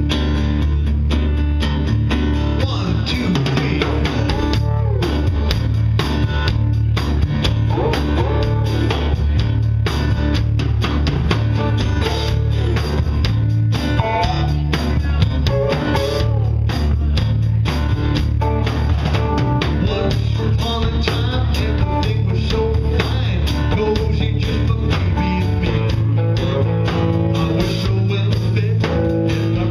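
Live band playing a blues-flavoured song with no singing: strummed acoustic guitar and electric guitar over drums and a steady low bass line.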